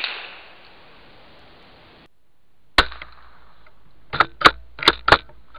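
A .22 Magnum rifle shot rings out about three seconds in, the tail of an earlier shot dying away at the start. About a second and a half later come four sharp metallic clicks in two quick pairs, typical of the rifle's action being worked to chamber the next round.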